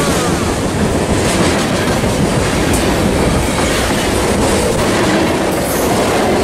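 A train passing close by: a loud, steady rumble of wheels on the rails with scattered clicks.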